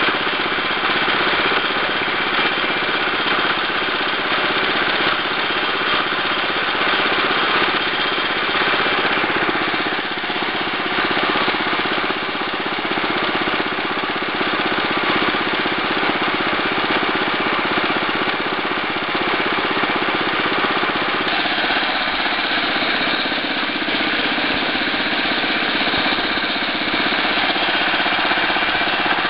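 The 8-horsepower engine of a 1965 Wheel Horse 875 hydrostatic garden tractor running steadily and loudly.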